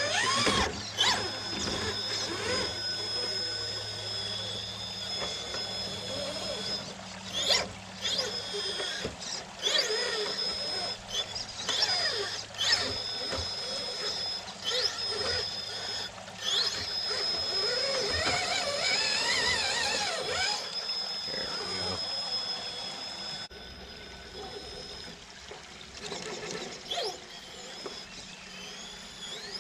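RC rock crawler's 3BRC Yellowjacket 2000kv brushless motor on a Castle Copperhead controller whining as the throttle is worked, its pitch rising and falling in short glides over a steady high whine, with scattered clicks and knocks. The sound is quieter near the end.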